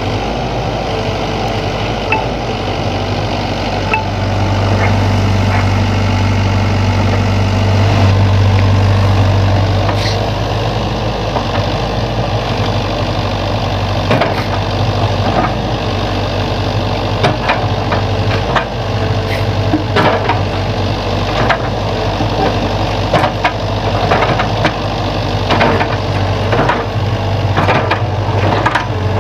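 Sany excavator's diesel engine running steadily, growing louder for a few seconds about a third of the way in as it comes under load. In the second half, sharp knocks and clanks come again and again over the engine.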